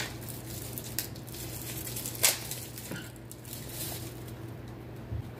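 Hands rummaging in a makeup pouch and handling cosmetic packaging: rustling with a few light knocks and clicks, the sharpest about two seconds in.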